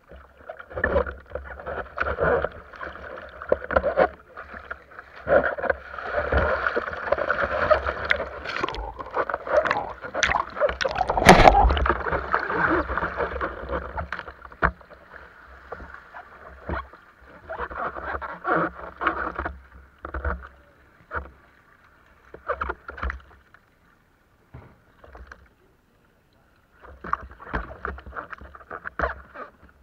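Water sloshing and splashing around a kayak as it is tipped over in shallow water, with knocks and scrapes against the hull and rumbling on the bow-mounted camera. The loudest moment comes about a third of the way in, and the sound is more broken toward the end.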